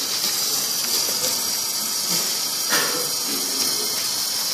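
Oxy-fuel brazing torch flame hissing steadily while a copper tube joint on a refrigerator compressor is brazed. One short tap sounds about three seconds in.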